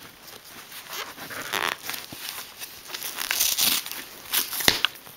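Fingers picking at and peeling packing tape on a stiff cardboard mailer: irregular scratchy rustling and short tearing sounds, with a sharp tap about four and a half seconds in.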